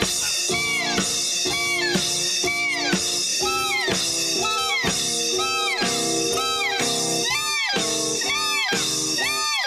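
Live band playing an instrumental break: a lead instrument plays notes that bend up and fall back about once a second over a steady held chord.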